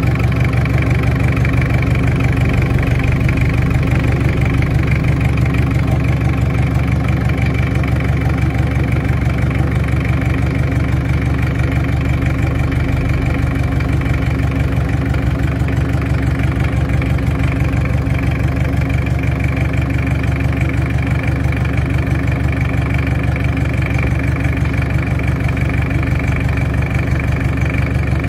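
Toyota 1DZ-II four-cylinder diesel forklift engine idling steadily.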